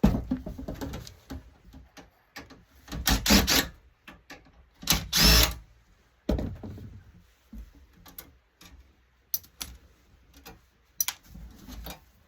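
Hands dismantling an LCD monitor: an irregular run of knocks, clicks and scraping rattles from its metal and plastic parts being pried and moved about.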